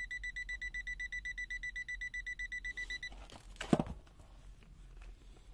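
LOMVUM DM6S multimeter's non-contact voltage (NCV) alarm beeping rapidly, about eight high beeps a second, as it senses AC voltage, then stopping about three seconds in. A brief knock follows a moment later.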